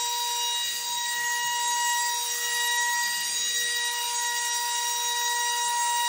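Sharper Image Gravity Rover wall-climbing remote-control car running on the ceiling, its suction fan giving a steady high-pitched whine over a hiss.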